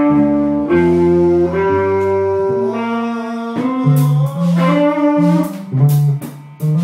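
Guitar playing a slow melodic line of held notes, stepping up and then down in pitch. Sharp percussive hits join in from about four seconds in.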